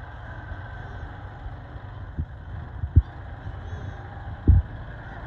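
Compact utility tractor's engine running steadily as it works a rear rotary tiller through loose soil, with a few short low thumps, the loudest about three seconds in and near the end.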